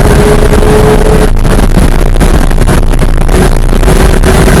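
Porsche 991.1 GT3's naturally aspirated flat-six running hard at high revs on track, loud, over wind and road noise. Its steady tone breaks off about a second and a half in, then comes back lower and weaker near the end.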